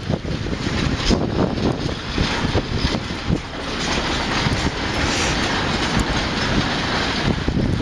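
Freight train wagons rolling across a railway bridge: a steady rushing noise with many sharp clacks from the wheels over the rail joints.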